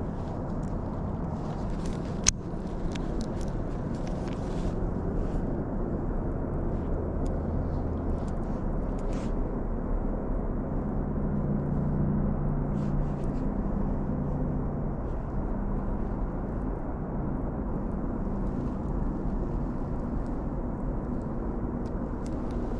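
Steady rumble of road traffic from a busy nearby road, swelling a little in the middle as a vehicle goes by. One sharp click a couple of seconds in.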